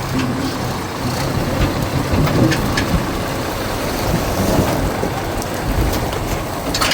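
Wood-fired boiler burning: a steady rushing roar with scattered crackles and a low hum underneath.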